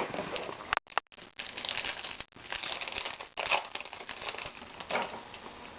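Crinkling and rustling of a trading-card pack wrapper being handled and torn open, in irregular bursts.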